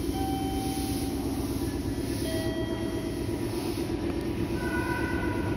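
Meitetsu 6000 series electric train standing at a station platform, its onboard equipment running with a steady low hum. A few faint, brief higher tones come and go over it.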